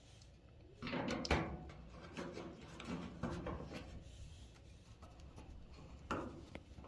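A screwdriver with a screw on its tip clicking, scraping and knocking against dryer parts as it is worked into place: a cluster of sharp clicks about a second in, lighter taps and rubbing after, and one more knock near the end.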